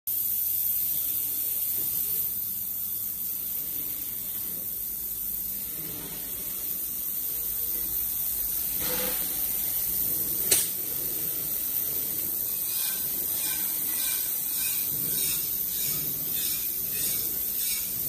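Industrial ultrasonic cleaning tank running: a steady high-pitched hiss from the water being agitated by the ultrasound. A single sharp knock comes about ten seconds in.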